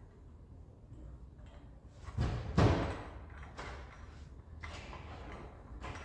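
Two loud knocks a little over two seconds in, followed by lighter clunks and handling noises, as engine parts and tools are worked on.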